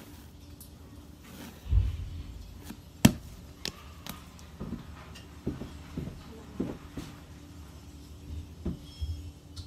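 Hands kneading and handling pandesal bread dough: soft thumps and knocks, with a low thump early and a single sharp click about three seconds in, then a string of short soft knocks.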